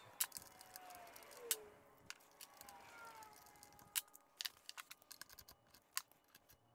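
Faint, scattered clicks and small taps of hand tools on metal while the bolts of a Malossi exhaust bracket on a scooter engine are tightened down.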